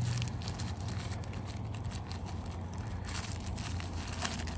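Small zip-lock plastic bag crinkling and rustling as it is handled, in irregular short crackles, over a steady low hum.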